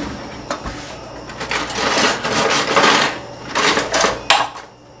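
Metal cutlery clattering and rattling in a kitchen drawer as a fork is picked out, with a few sharp clicks at first, a long rattle, and several short clatters near the end.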